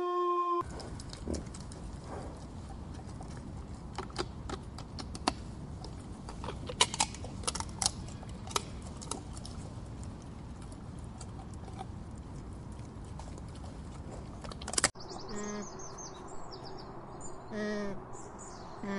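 A wolf's howl cuts off within the first second. Steady outdoor noise follows, with scattered sharp clicks and snaps. Near the end, birds chirp and a few short, low animal calls sound.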